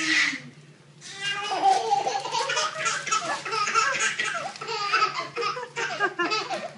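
A baby laughing in repeated giggling bursts, starting about a second in and running on without pause. A short hiss comes right at the start.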